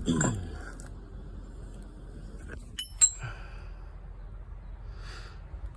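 A metal hand tool from a tyre plug kit clinking: a sharp metallic click with a brief bell-like ring about three seconds in. Before that, the ring of a louder knock fades out at the start.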